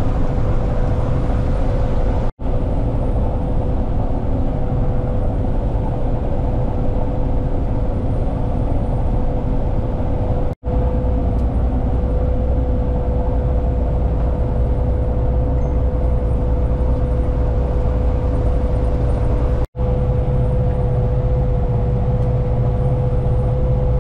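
Massey Ferguson 7244 combine harvester running steadily while harvesting wheat: a constant deep engine drone with a steady whine held on one pitch. The sound cuts out for an instant three times, about 2, 10 and 20 seconds in.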